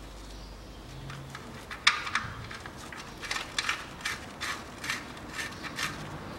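Oil drain plug being screwed back into a Daewoo Matiz's engine oil pan. From about two seconds in there is a run of short, light clicks, a few a second.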